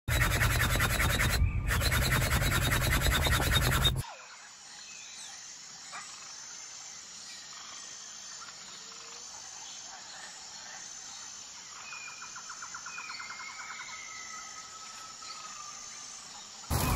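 An electric air pump inflating an Intex inflatable boat runs loudly and steadily for about four seconds, drops out briefly once, then cuts off sharply. Quieter outdoor ambience follows, with birds whistling and trilling and a faint repeating high chirp. A loud sound starts abruptly just before the end.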